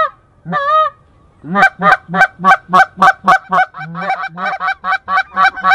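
Canada goose honks: one call, a short pause, then a fast, regular run of honks at about four a second, each breaking upward in pitch.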